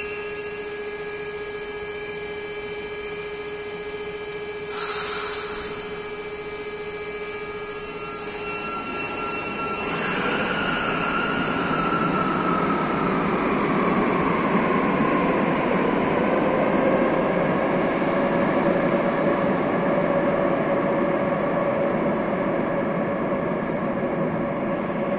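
SFM commuter train standing at the platform with a steady electrical hum, broken by a short burst of air hiss about five seconds in. About nine seconds in it pulls away: its motors whine and shift in pitch as it speeds up, and the rumble of its wheels grows loud and echoes through the underground station.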